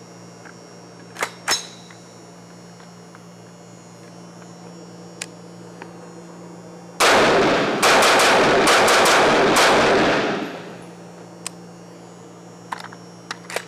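An AR-15 with a side-charging 5.56 NATO upper fires a rapid string of shots, starting about seven seconds in and lasting about three seconds. The reports ring on briefly in the indoor range before dying away.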